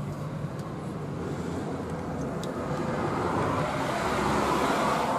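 A car passing by, its engine and tyre noise growing louder toward the end.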